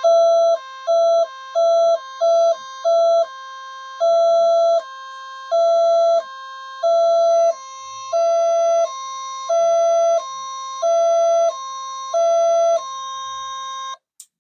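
Radio Shack 200-in-One kit's audio oscillator circuit sounding a loud, piercing electronic tone. Each press of the key switch drops it to a lower tone by switching in extra capacitors, about a dozen times: quick taps at first, then longer presses roughly every second and a half. It cuts off suddenly near the end.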